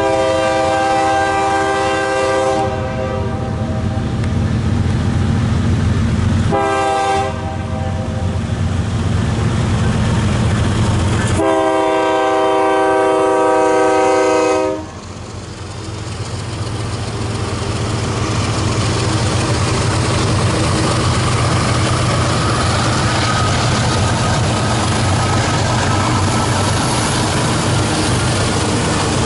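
Freight train locomotive air horn sounding the grade-crossing signal: a long blast, a short one, then a longer final blast ending about 15 seconds in. Then the BNSF diesel locomotives' engines run louder as the train rolls up to and past the crossing.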